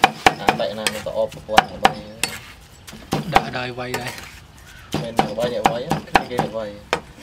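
Cleaver chopping a mound of red ants and vegetables on a round wooden chopping board: quick, irregular knocks of the blade into the wood, about three a second, with a break of about a second near the middle before the chopping resumes.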